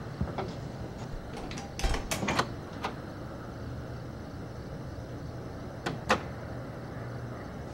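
A wooden front door being shut, closing with a sharp double click of door and latch about six seconds in. A few scuffs and knocks come around two seconds in, over a steady low hum.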